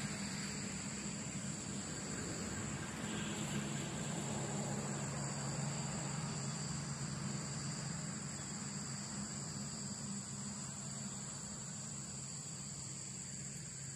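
Crickets trilling steadily in a high, unbroken chorus over a low steady drone. A wash of background noise thins out over the second half.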